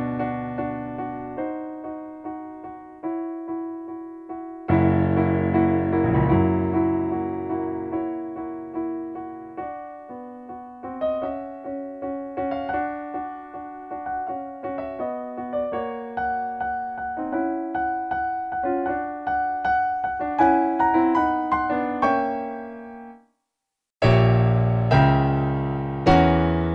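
Background piano music: a slow run of single struck notes and chords, each fading away. Near the end it stops for a moment, then comes back with deeper, louder chords.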